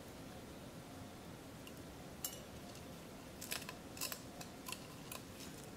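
Faint small clicks and scrapes of a cut plastic drinking straw scooping soaked sticky rice and poking it into the holes of a peeled lotus root: one tick a little after two seconds, then a handful of short clicks in the second half.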